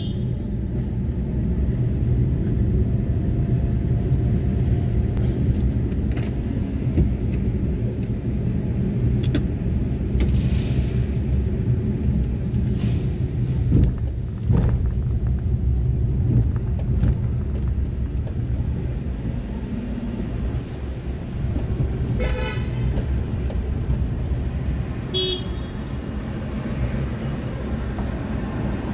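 Steady low rumble of engine and road noise inside a moving car's cabin. Late on, a vehicle horn honks for about a second, then again briefly a few seconds later.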